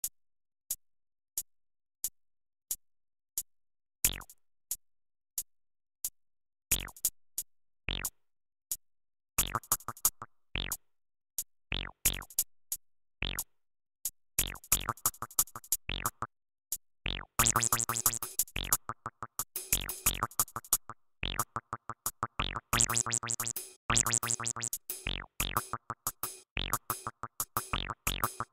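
Electronic IDM music: clicking drum-machine hits, evenly spaced about three every two seconds, that build up with more percussion and synthesizer layers into a dense, busy pattern in the second half.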